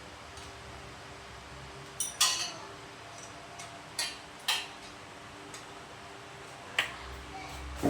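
Spanners and steel engine bolts clinking against metal as the motorcycle's engine mounting bolts are worked loose: a few sharp clinks that ring briefly, a pair about two seconds in, two more about halfway, and another near the end.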